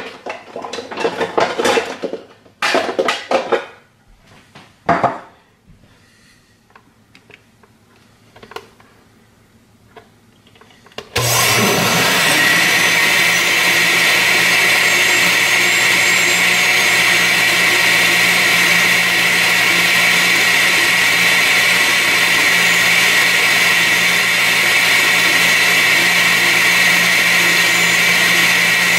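A few knocks and clatters, then about eleven seconds in a countertop blender with a glass jar switches on, its motor quickly rising to speed, and runs steadily, blending a milkshake.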